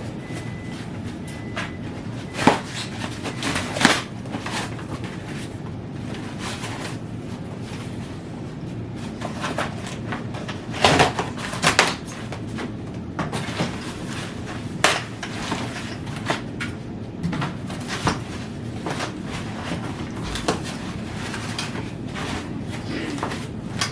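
Irregular knocks, clicks and rustling from e-bike parts and packaging being handled and unpacked during assembly, with a few louder clunks.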